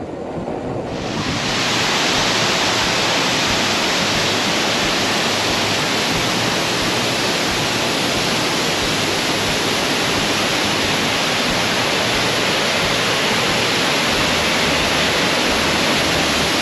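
Kadiyanlena Falls rushing: a steady, dense wash of falling water that swells up over the first second or two and then holds level.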